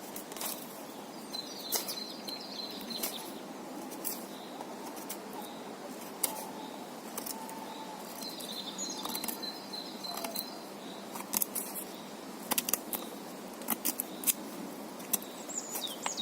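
Mora 2000 knife blade cutting and shaving wood in quick strokes, a scatter of sharp snicks and scrapes that come faster in the second half. Birds chirp twice in the background.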